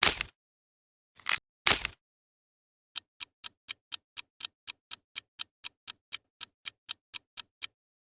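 Clicking presented as a scorpion's sound: three louder, scattered clicks, then a fast, even run of sharp ticks about four a second for nearly five seconds.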